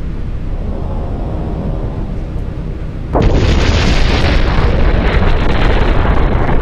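Space explosion sound effect: a steady rumble, then a sudden louder blast about three seconds in that keeps rolling on.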